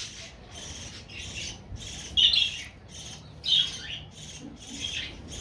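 Indian ringneck parakeets making short, repeated squawks, about three a second, two of them louder about two and three and a half seconds in.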